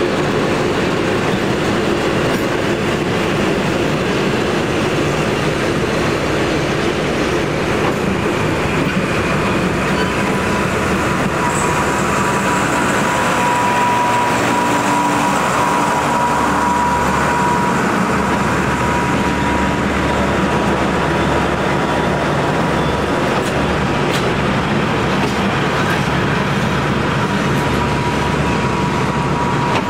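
Vintage Victorian Railways wooden passenger carriages rolling past a platform, with a steady rumble of wheels on rail. About ten seconds in, a thin steady whine joins the rumble, and a deeper steady hum comes in over the second half.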